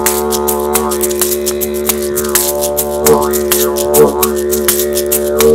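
Square wooden didgeridoo blown as a steady drone, its tone sweeping up and down as the player shapes his mouth. Quick, irregular clicks run over it.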